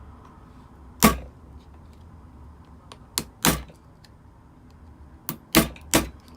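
About six sharp clicks and snaps as a tool pries at the glued plastic case of an Apple A1719 87W USB-C power adapter: one about a second in, two around the middle, three in quick succession near the end.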